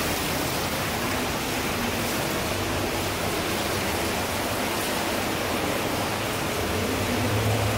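Steady rush of the Neglinka underground river's water flowing through its vaulted collector tunnel, an even noise with no breaks.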